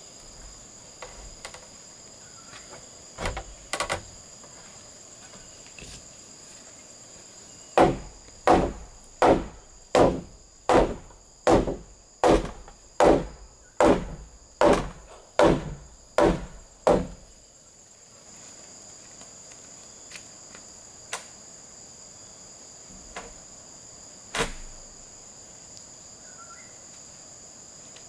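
A run of about thirteen hard strikes on wood, a little under one a second, with a few single knocks before and after. Insects, crickets or similar, chirr steadily at a high pitch throughout.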